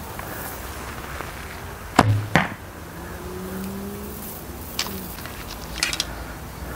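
An arrow shot from a 55-pound recurve bow hitting a hanging piece of old carpet used as a backstop and lodging in it, about two seconds in. Two sharp strikes less than half a second apart, the first with a low thump.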